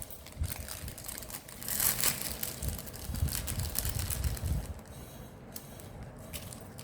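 Paintbrush scrubbing and rubbing chalk paint onto the edges of a craft piece, with light knocks and clicks as it is handled; the rubbing is loudest from about two to four and a half seconds in.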